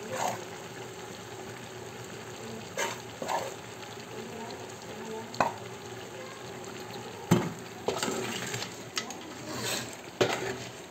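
Chicken pieces frying in masala in a pan, sizzling steadily. A spoon knocks and scrapes against the pan now and then; the sharpest knock comes about seven seconds in.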